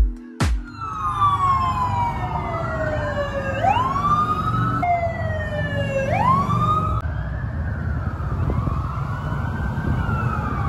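Police vehicle sirens passing on a city street: several sirens sweep down in pitch and then whoop sharply back up, and later a slower rising-and-falling wail, over steady traffic noise.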